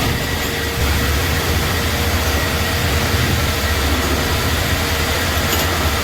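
A workshop machine running steadily: a low rumble under an even hiss, with a faint steady whine.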